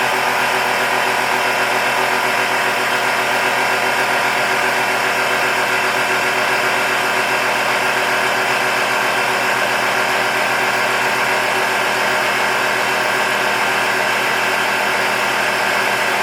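Air horn system's electric compressor running steadily, pumping the air tank up towards full pressure, with a rattling mechanical drone.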